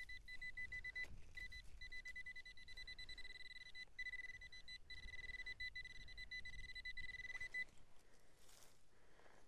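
Handheld metal-detecting pinpointer probe beeping rapidly and high as it is pushed into the soil over a shallow metal target. The beeps run together into a near-continuous tone through the second half and stop about three quarters of the way through, when the probe is lifted.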